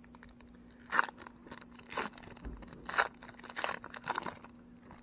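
Plastic wrapper of a baseball card pack crinkling and tearing as it is ripped open by hand, in four or five short bursts about a second apart.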